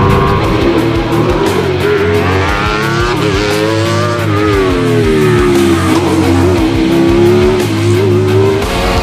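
Wolf GB08 Thunder hillclimb prototype's 1150 cc engine running hard, its pitch rising to a peak about four seconds in and then falling away, under background music with guitar.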